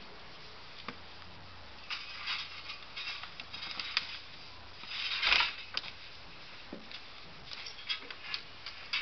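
Scattered short crunches and knocks as a hand-worked lever lifter shifts a loaded wooden platform over packed snow, with one louder, longer crunch about five seconds in.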